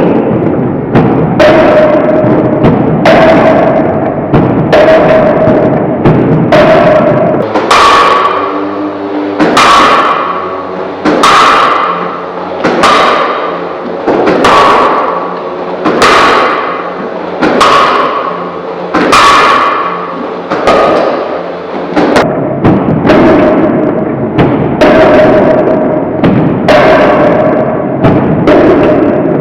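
Background music with a heavy drum hit about once a second under a held note that moves up in pitch for the middle stretch and drops back near the end.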